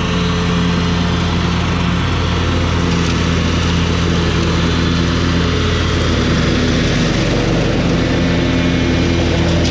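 John Deere L110 ride-on lawn mower running steadily while mowing grass. Its engine note shifts slightly a couple of times in the middle.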